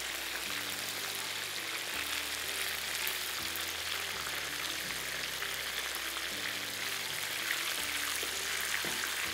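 Breaded chicken fingers frying in hot oil: a steady sizzle full of small crackles.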